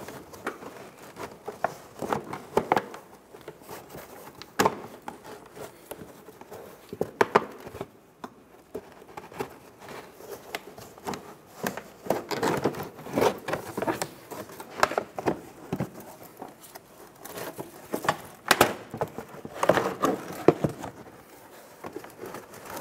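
Mini Cooper's fabric-covered inner fender liner being worked out of the front wheel well by hand: irregular rustling, crinkling and scraping of the liner against the body, with a few sharp clicks now and then.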